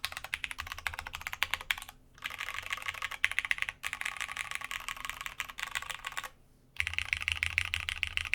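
Typing on a Masjewerke K-III custom mechanical keyboard with plateless Cherry MX Brown switches, GMK keycaps and the brass internal weight: dense runs of rapid clacking keystrokes, broken by short pauses about two seconds in and again about six seconds in.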